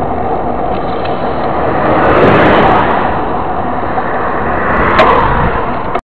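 Steady wind rush and road noise on a mountain bike's camera microphone during a ride along a highway. An oncoming truck goes by with a swelling whoosh about two seconds in, and there is one sharp knock about five seconds in.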